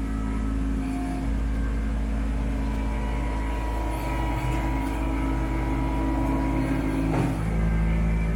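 Kubota B2650 compact tractor's three-cylinder diesel engine running steadily with a deep rumble and a thin whine over it; the engine note shifts about seven seconds in.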